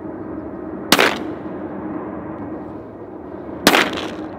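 Two shotgun shots about three seconds apart, each a sharp blast with a short echo trailing off.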